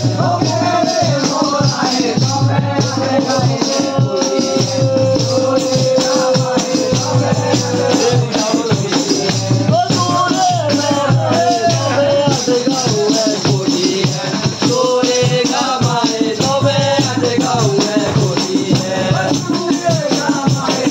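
Pahari folk song (munjra) sung to a hand drum and jingling tambourines, the drum keeping a steady beat under shaken jingles. The melody bends up and down, with one long held note from about four to eight seconds in.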